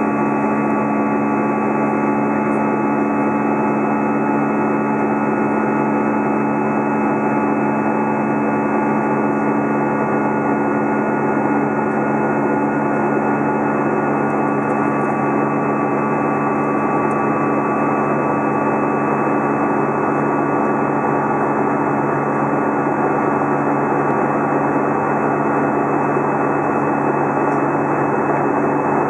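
Cabin noise of an Airbus A320 climbing after takeoff, heard from a seat beside the wing-mounted jet engine: a loud, steady drone of engine and airflow with several steady humming tones, unchanging throughout.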